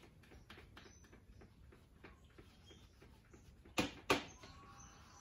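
Lever-action grease gun being pumped in quick strokes, a light click with each stroke, forcing grease through a spindle greaser toward the front spindle bearing of a Toyota Landcruiser. Two louder, sharper clicks come close together a little under four seconds in.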